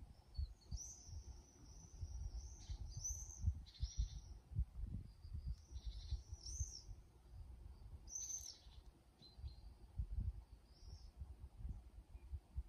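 Common swifts screaming, several shrill bursts of calls spread through the time, over irregular low thumping.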